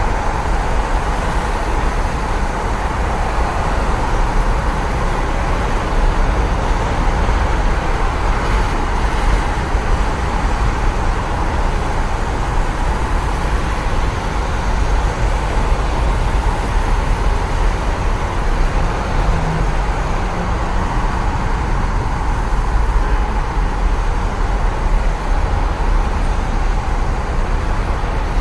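Steady road traffic on a wet road: the tyres swish and hiss over the wet surface in a continuous wash, with no single passing vehicle standing out.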